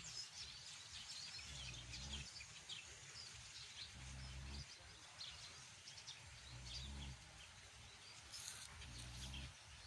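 Sleeping pig snoring: low, rough snores about every two and a half seconds, four in all. Small birds chirp faintly in the background.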